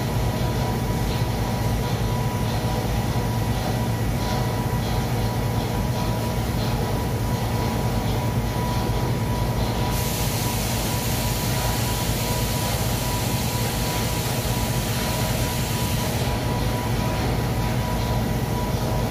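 Industrial glove-washing machinery running with a steady hum and rumble. About halfway through, a loud hiss starts suddenly and cuts off about six seconds later.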